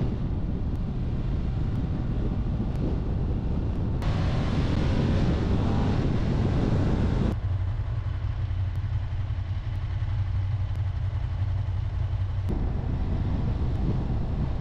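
Ducati Monster 1200 S L-twin engine running under the rider, mixed with wind noise on an action camera mounted on the bike. The sound changes abruptly about four, seven and twelve seconds in. From about seven to twelve seconds it is mostly a steady low hum.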